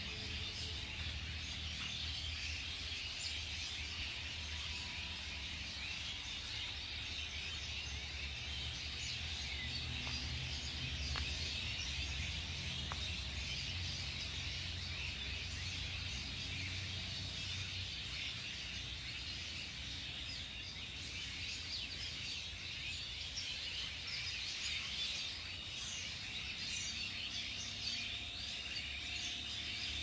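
Outdoor ambience of birds chirping steadily, with a low rumble underneath that eases off about halfway through.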